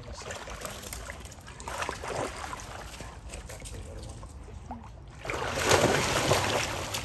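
Dogs wading and splashing in shallow lake water, with light sloshing and trickling, and a louder rush of noise about five seconds in.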